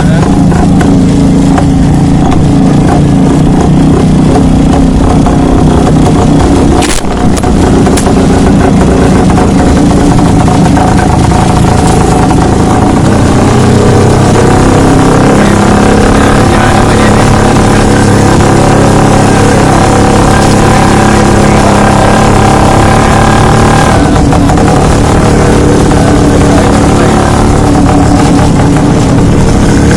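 1975 Rajdoot motorcycle's single-cylinder two-stroke engine running loudly as the bike is ridden, its pitch changing with the throttle. There is a short sharp click about seven seconds in.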